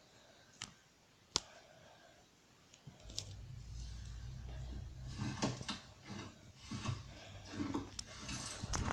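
Slime being handled and squeezed, giving off small sharp clicks and crackling pops; from about three seconds in a low rumble of handling noise runs under the pops.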